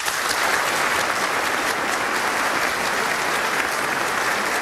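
Audience applause, breaking out all at once and holding steady.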